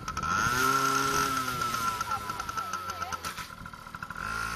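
Dirt bike engine revved twice. Each time the pitch climbs quickly, holds for about a second, then drops back toward idle. The second rev comes near the end.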